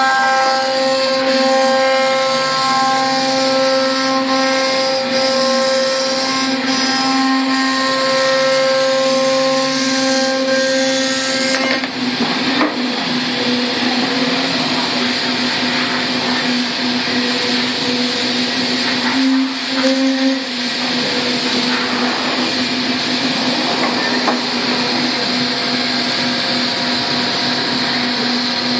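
Five-axis CNC milling machine running a part program: a steady spindle whine with a stack of overtones. About twelve seconds in, the overtones thin out and a higher hiss comes up under the steady tone.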